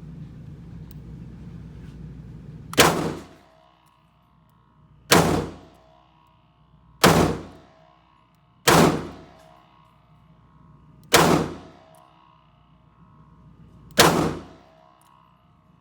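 Six single shots from a Taurus 856 .38 Special revolver, fired one at a time about two to three seconds apart, the first about three seconds in.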